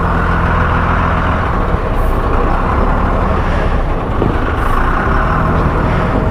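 A vehicle on the move: steady engine hum under a continuous rush of wind and road noise.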